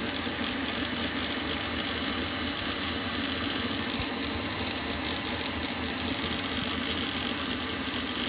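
Electric mixer running steadily at speed, beating eggs and sugar until fluffy; it is loud.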